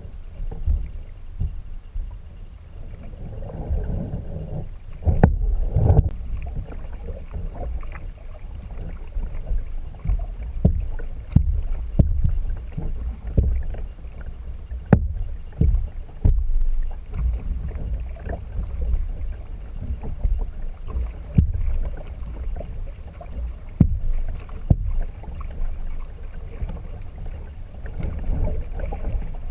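Kayak on the water: a steady low rumble with water noise, broken by sharp knocks at irregular intervals of one to several seconds.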